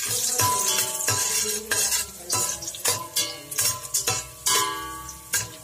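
A metal spoon stirs cashews frying in hot oil in a stainless steel pot, knocking and scraping against the pot about twice a second. Each stroke leaves a brief metallic ring, over the sizzle of the oil.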